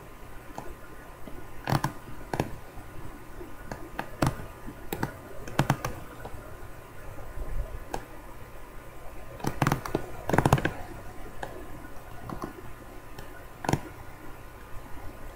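Irregular clicks and knocks, a dozen or so scattered unevenly and some in short clusters, over a faint steady electrical hum.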